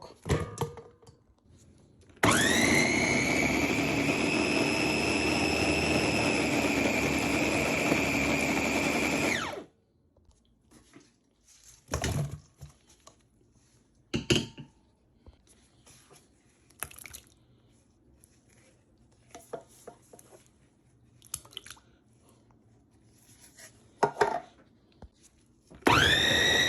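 Small electric chopper and meat grinder motor running a smooth blend. It spins up with a rising whine about two seconds in, runs steadily for about seven seconds and stops. Scattered clicks and knocks follow, and it starts up again near the end.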